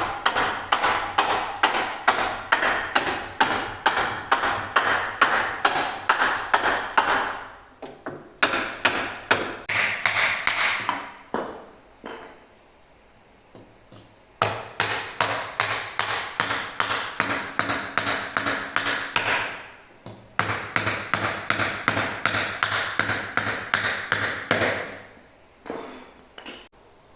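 A hammer striking repeatedly, about three blows a second, in four long runs with short pauses between them and a few last blows near the end; each blow rings briefly.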